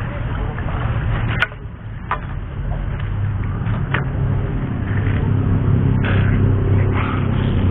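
A steady low engine-like hum runs underneath, growing a little louder. Over it come a few short knocks and splashes as a catfish is lifted out of the water in a landing net and set down on the concrete bank.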